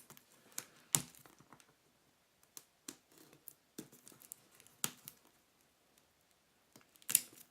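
Plastic shrink wrap being picked at and torn off a cardboard box: scattered sharp crackles and crinkles, with a louder cluster near the end.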